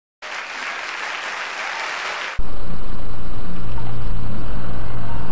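A steady hiss for about two seconds, then an abrupt switch to a loud, steady low rumble of a car driving, picked up by a dashcam inside the cabin.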